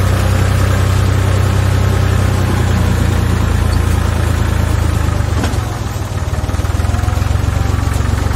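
Massey Ferguson 255 tractor's diesel engine running steadily under way at low speed, its note dipping briefly about two-thirds of the way through.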